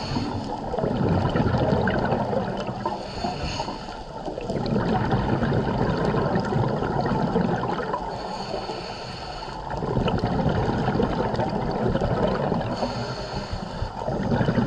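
Scuba diver breathing through a regulator underwater: four breaths, each a short hiss on the inhale followed by a few seconds of bubbling exhaust.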